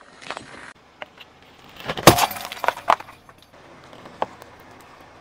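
Something brittle cracking and crunching under a slowly rolling car tyre: one sharp crack about two seconds in, then a few quick snaps and clinks.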